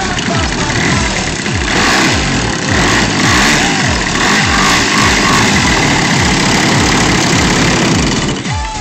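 Radio-controlled Yak 54 aerobatic model plane's engine running at low throttle while it taxis on grass, a steady loud running note.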